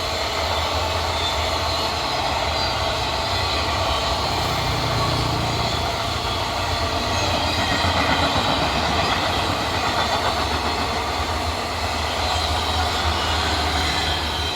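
Indian Railways express train rolling slowly past, its wheels grinding and squealing on the rails with a steady low rumble underneath. The train is crawling under a temporary speed restriction.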